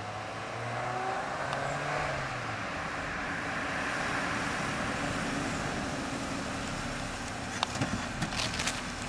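A sedan driving up the street and pulling in, its engine running under the noise of tyres on the road, the engine note rising and then easing off in the first few seconds. A few short clicks near the end.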